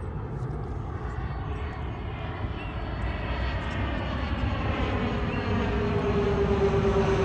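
Airplane flying low overhead, its engine noise growing steadily louder, with a droning tone that comes in about two-thirds of the way through and sinks slightly in pitch.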